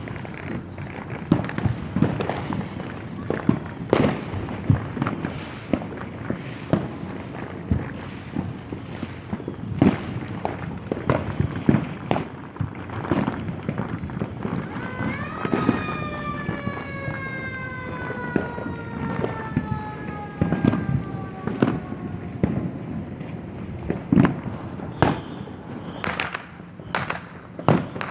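Many fireworks going off across the city: a continuous crackle with frequent sharp bangs at irregular intervals. About halfway through, a drawn-out tone with overtones slides slowly down in pitch for several seconds over the bangs.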